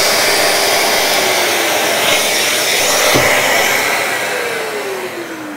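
DeWalt plunge router and workshop dust extractor running, with a single knock about three seconds in. Over the last two seconds a motor winds down, its pitch falling steadily as it switches off.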